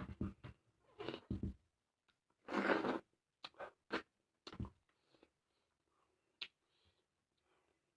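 Close-up eating sounds: a run of short crunching and chewing bursts, the loudest about two and a half seconds in, dying down to faint mouth clicks in the second half.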